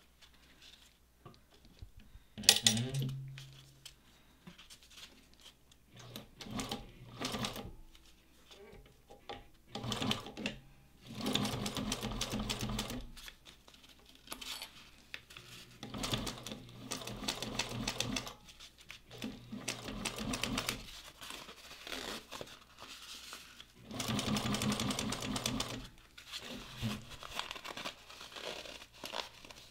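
Industrial Juki 1541 walking-foot lockstitch sewing machine stitching a seam in short stop-and-go bursts of a second or two, with pauses between as the fabric is guided. A loud clunk comes about two and a half seconds in.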